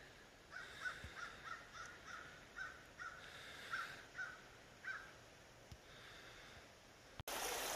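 A crow cawing faintly, a rapid series of about a dozen short caws over the first five seconds. Near the end the sound cuts abruptly to the steady rush of a flowing creek.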